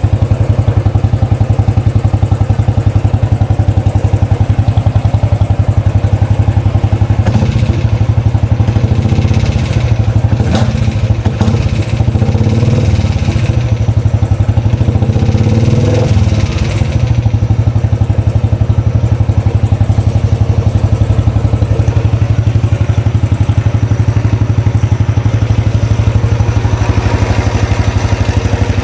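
Royal Enfield Classic 500 single-cylinder engine running steadily after its rebuild, with a fast, even beat. In the middle stretch the sound grows busier and a little louder for about ten seconds before settling back.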